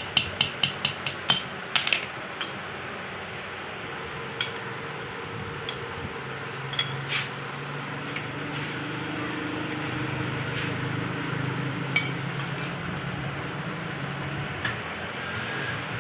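A quick run of hammer taps on metal, about five a second, in the first two seconds, then scattered single metal clinks over a steady low hum.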